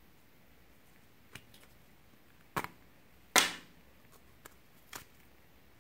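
Small plastic toy capsule being handled and pulled apart: a few sharp plastic clicks and snaps, the loudest about three and a half seconds in.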